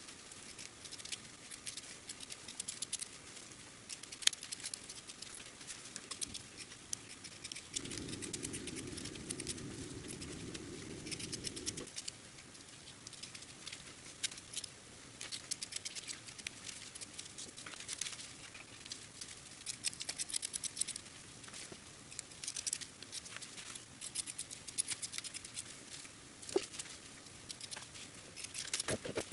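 Scissors snipping through muslin fabric: a long run of small, crisp snips, irregular and close together like patter. A low hum joins in for about four seconds roughly eight seconds in.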